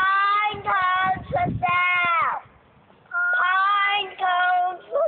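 A young girl's high sing-song chant, two drawn-out phrases that fall in pitch at the end of each, calling out "pine cones for sale" to passers-by.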